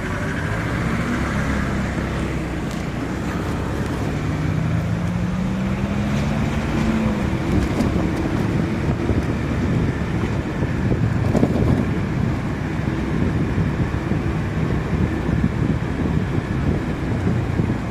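Vehicle engine running under throttle on the move, its pitch rising for a few seconds about four seconds in, then a steady rumble with wind buffeting the microphone.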